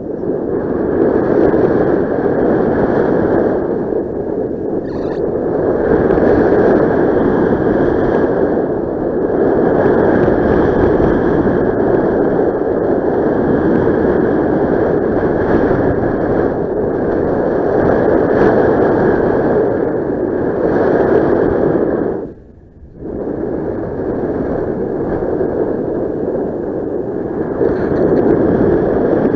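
Steady wind rush on the microphone from airflow in paraglider flight, with a short dip about 22 seconds in.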